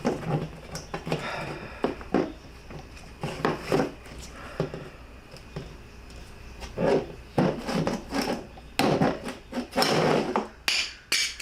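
Hand tool work on a metal vent-window frame: a flat-blade screwdriver scraping and prying, with irregular clicks, knocks and rubbing as old rubber weatherstripping is worked loose.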